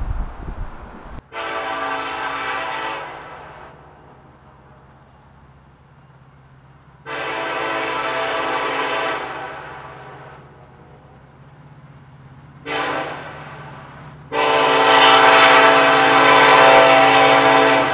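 CN SD70M-2 diesel locomotive's multi-chime air horn sounding the grade-crossing signal: long, long, short, long, the last blast the loudest. The locomotive's engine hums underneath, growing louder as it approaches.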